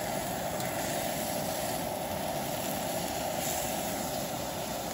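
Steady roar of a camping gas burner under an iron griddle, with thick onion slices sizzling on the hot plate.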